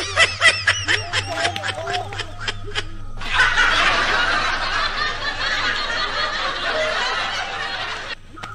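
Laughter in quick, giggling bursts, then from about three seconds in a louder, denser stretch of laughing that cuts off shortly before the end.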